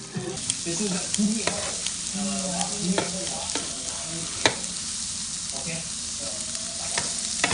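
Food sizzling in a frying pan, stirred with a utensil that clicks against the pan now and then, loudest about four and a half seconds in.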